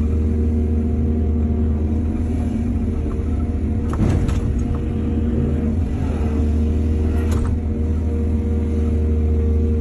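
Excavator engine running at a steady pitch, with a short rattling crash about four seconds in and another near seven seconds.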